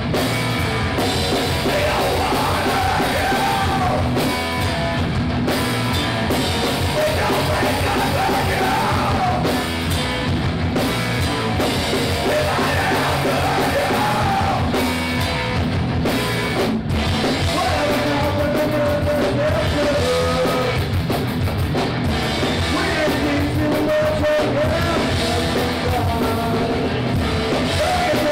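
Live rock band playing at full volume, with electric guitars and a drum kit under a vocalist yelling and singing into the microphone.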